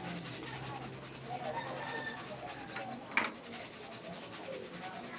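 Hot cooking oil sizzling and crackling as sun-dried cooked rice deep-fries in a wire strainer held in the pan, puffing up. One sharp metallic click about three seconds in, the strainer knocking the pan.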